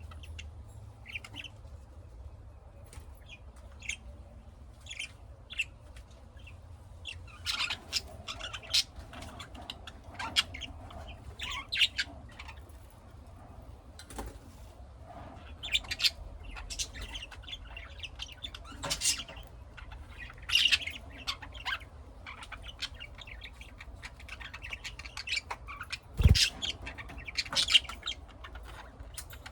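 Small pet parrots calling: irregular short, sharp chirps and squawks, some in quick clusters, over a steady low hum. One sharp knock near the end.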